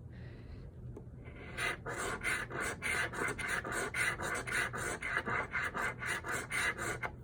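Scratch-off lottery ticket being scratched, the latex coating rubbed off in quick, even back-and-forth strokes, about four or five a second. The scratching starts about a second and a half in and stops just before the end.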